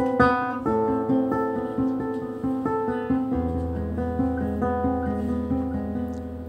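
Acoustic guitar fingerpicked in a steady run of single notes, several a second; about halfway a deep low note comes in and rings on under the picking.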